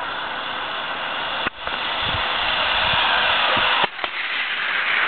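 Steady rushing hiss of a zip line run, the trolley running along the cable with air rushing past, growing slightly louder and cutting out briefly twice.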